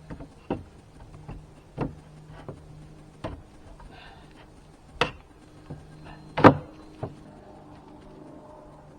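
Irregular wooden knocks and clunks, about a dozen, of boards being handled and set in place, the loudest about six and a half seconds in, over a faint steady low hum.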